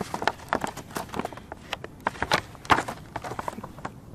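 Rigid clear plastic box of firework tubes gripped and turned over in the hands: irregular plastic clicks and crackles, several a second.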